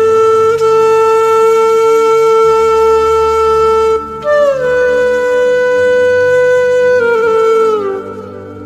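Background music: a wind instrument plays long held notes. The first is held for about four seconds; the next starts higher, glides down and holds, then steps down and fades near the end, over a faint low accompaniment.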